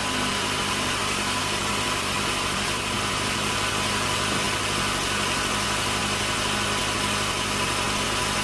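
Sawmill machinery running steadily with an even engine-like drone, the saw turning over without cutting wood.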